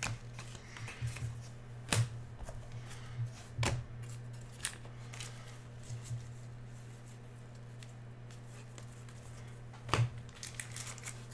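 Trading cards and packs being handled: light shuffling and rustling, with a few sharp clicks and snaps, over a steady low hum.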